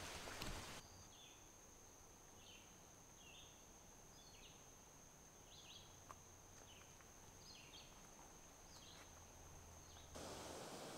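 Eastern chipmunk alarm call: a faint, regular series of sharp, high-pitched chips, about one and a half a second, over a steady high-pitched whine. The chips and the whine start about a second in and stop together near the end.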